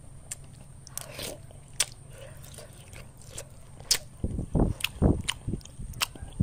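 Someone eating from a spoon: chewing and mouth clicks, with scattered sharp clicks and a run of soft low thumps in the second half.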